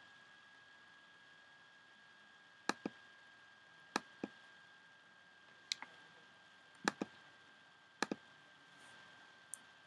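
Sharp clicks at a computer, mostly in close pairs about a second apart, over a faint steady high-pitched whine.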